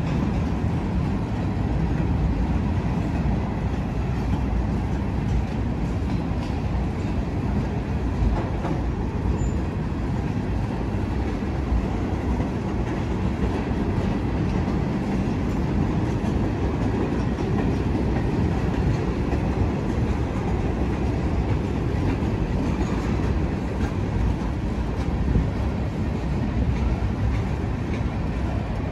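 Freight train tank cars and flatcars rolling past: a steady low rumble of steel wheels on rail with occasional light clicks.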